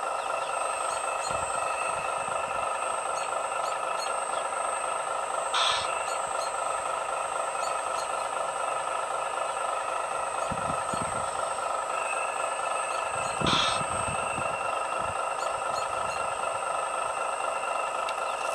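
Steady electric whine of a radio-controlled scale excavator's motors as it swings and digs into a pile of gravel and rubble. Two short scraping rasps of stones, about a third of the way in and again about three quarters through.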